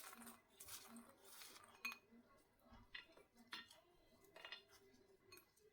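Faint clinks and scrapes of a utensil against a bowl or pan, a scattered series of short strokes, as syrup-soaked mihidana is lifted out of the sugar syrup.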